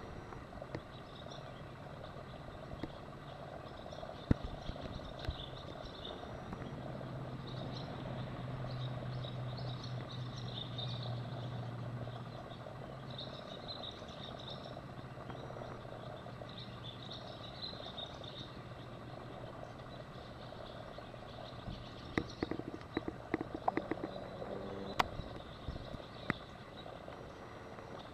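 Outdoor background: high chirping that comes and goes, and a low hum that swells in the middle and then fades. A run of light clicks and knocks sounds about 22 to 25 seconds in.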